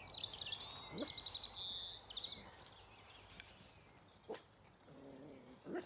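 A rapid, high trill from a songbird for the first two seconds or so, then a few single short barks from a small dog, the last and loudest near the end.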